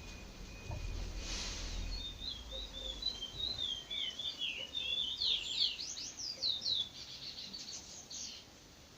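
A curió (chestnut-bellied seed-finch) singing: a run of quick chirping notes building into fast, steeply falling whistled sweeps, stopping shortly before the end. A faint steady high whistle-like tone sounds over the first couple of seconds.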